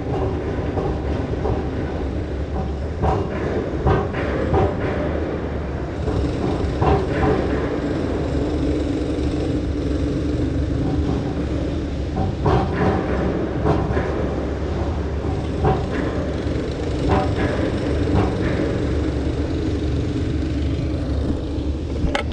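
Ride in a moving vehicle heard from on board: a steady low rumble and hum, with short knocks and rattles about every second.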